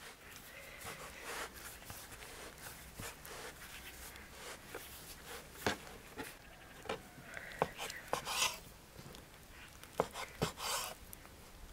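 Hands rolling a thin buttered dough sheet into a log on a wooden board: soft rubbing and sliding with scattered light knocks on the board. Near the end a knife cuts through the dough roll and taps the board.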